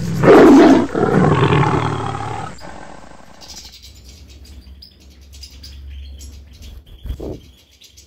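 A loud roar lasting about two and a half seconds, then faint twittering of European goldfinches.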